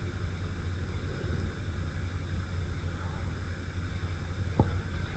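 Steady low rumble and hiss of room tone in the recording, with one sharp click about four and a half seconds in.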